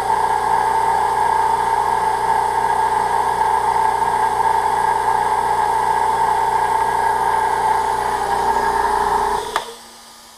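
Fortress 26-gallon Ultra Quiet oil-free air compressor running steadily on its break-in run with the tank drain valve open: a steady hum. It cuts off abruptly near the end.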